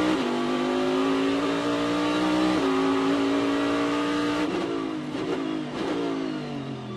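Corvette Daytona Prototype's V8 engine heard on board at full throttle, the revs climbing steadily with one upshift about two and a half seconds in. Then, braking for a turn, it downshifts three times with quick throttle blips, and the revs and loudness fall away near the end.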